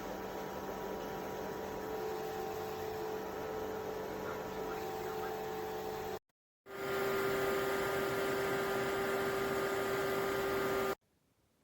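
Small portable evaporative air cooler's fan running with a steady hum and rush of air. After a brief break about six seconds in it runs again, louder and at a slightly different pitch, then stops abruptly near the end.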